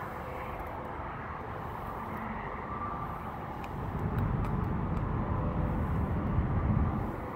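Low outdoor rumble with no voices, swelling for a few seconds about halfway through and easing off near the end.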